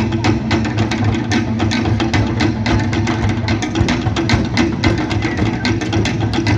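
Polynesian drum ensemble playing a fast, driving rhythm: rapid even strikes on wooden slit drums over a pounding low beat from skin and bass drums.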